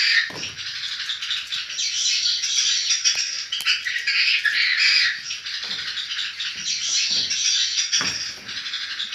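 Many swiftlets twittering inside a swiftlet house, a dense, continuous high chatter, with a few soft low thuds along the way.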